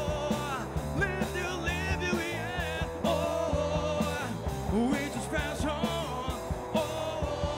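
Rock band playing live: drum kit, electric bass and electric guitar under a male lead vocal sung into a handheld microphone.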